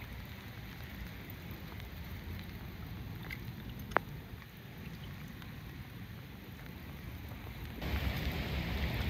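Light rain outdoors: a steady hiss with scattered small drop ticks and one sharp tick about four seconds in. Near the end it turns to a louder, low wind rumble on the microphone.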